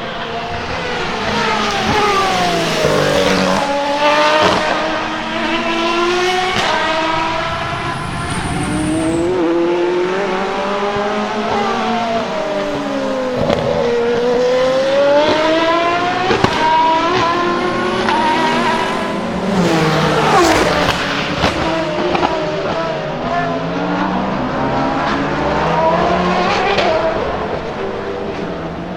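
Aston Martin Valkyrie AMR-LMH hypercar's naturally aspirated V12 running at racing speed. It passes several times at full throttle, its pitch climbing through gear changes and dropping as each pass goes by.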